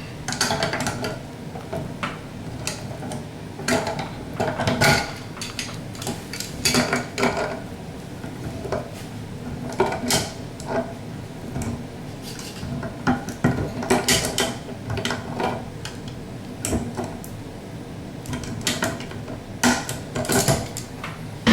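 Pliers clinking and scraping against the metal couplings of washing-machine supply hoses as they are tightened onto the water valves, in short irregular clicks and knocks.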